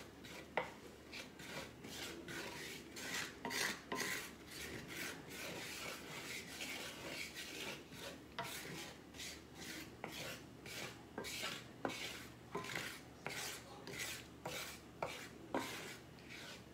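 Wooden spatula scraping and stirring browning flour and pan drippings in a cast iron skillet, in repeated rasping strokes about two a second, with a few sharp taps against the pan, the loudest about half a second in.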